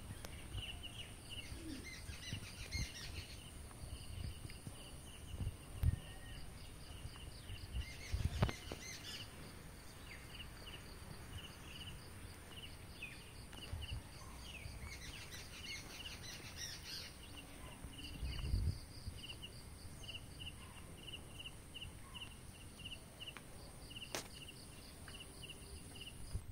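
Outdoor ambience with a bird calling a long series of short repeated chirps, broken by a few busier bursts of song, over a steady high-pitched tone. Scattered low bumps.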